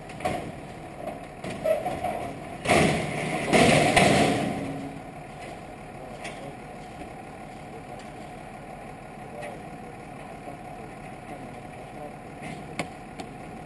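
A vehicle engine idling steadily, with two short, loud, noisy bursts about three and four seconds in.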